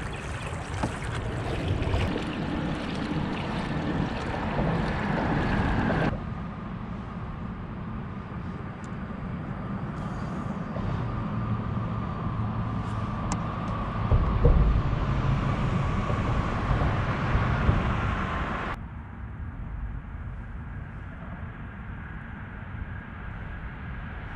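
Wind and water noise on a kayak, across edited clips; the sound changes abruptly about six seconds in and again near the end. A single low knock comes about two-thirds of the way through.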